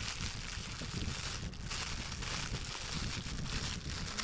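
Clear plastic packaging bag crinkling and rustling as it is handled and opened, in an uneven run of crackles.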